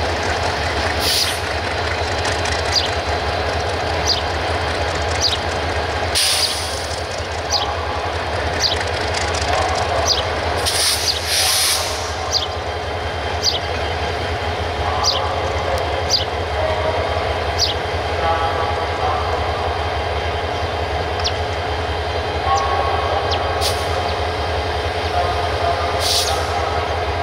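Diesel-hauled train running along the track: a steady low drone with regular sharp clicks about once a second, and a few short hissing bursts along the way.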